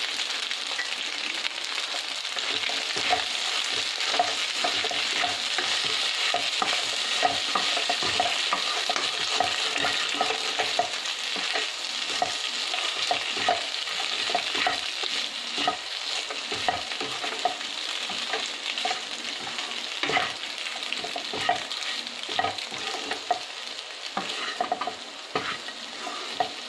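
Wooden spoon stirring and tossing macaroni pasta with grated paneer in a non-stick kadai over the heat, with a steady sizzle of frying and irregular scrapes and light knocks of the spoon against the pan.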